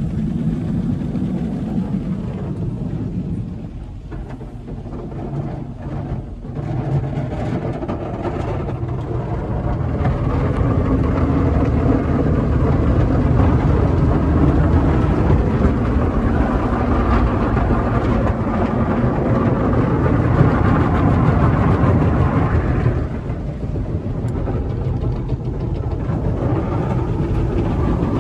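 Coleman Hanna car wash tunnel equipment heard from inside the car's cabin: water spraying and cloth brushes scrubbing over the body in a continuous wash. It grows louder midway through, then eases off noticeably near the end.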